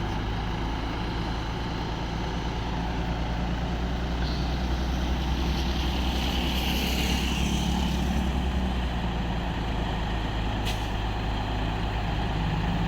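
Heavy diesel excavator engine running steadily with a deep hum, a hiss swelling up in the middle and a single sharp click near the end.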